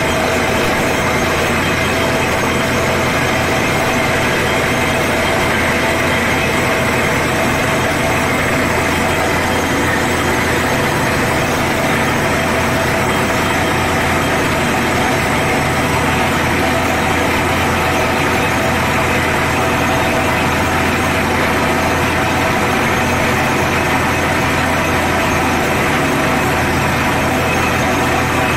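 Watertec 9000 water-well drilling rig running steadily under load, its drill rod turning in the borehole while wet rock cuttings shower out around it.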